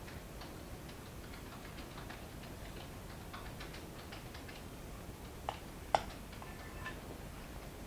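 Light clicks and taps of a metal spoon and knife working soft pastry cream, with a sharper clink of the spoon against the cream bowl about six seconds in.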